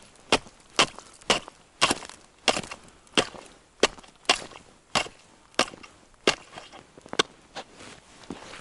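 A wooden pole tapping on thin new ice, sharp wooden knocks at about two a second in a steady series, probing the ice ahead while walking.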